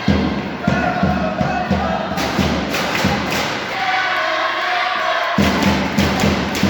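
Music with a steady, thudding beat and a sung or melodic line over it; the beat drops out for about a second and a half past the middle, then comes back.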